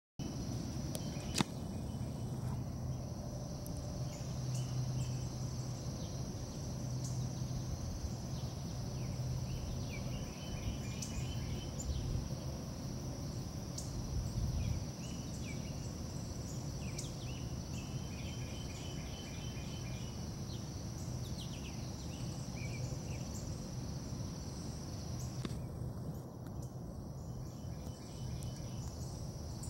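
Outdoor evening insect chorus: a steady high-pitched drone with intermittent chirping trills, over a low steady hum. A single sharp click a little over a second in.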